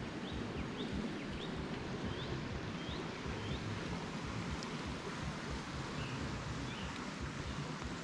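Steady outdoor rushing background noise with wind buffeting the microphone, and a bird chirping a run of about seven short high notes in the first three or four seconds, with a couple more faint chirps later.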